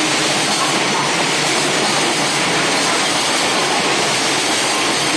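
Container freight train's flat wagons rolling past: a steady rushing noise of steel wheels on rail, with no distinct clacking beat.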